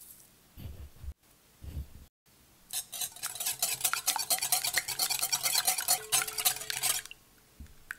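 Wire whisk beating eggs and milk in a glass bowl, its tines clicking rapidly against the glass for about four seconds, starting roughly three seconds in. A few soft low knocks come before it.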